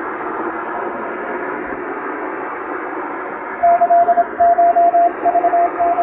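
Shortwave-style radio hiss and static, then about three and a half seconds in a single steady-pitched Morse code tone starts keying dots and dashes: a Japanese wabun Morse telegram being sent.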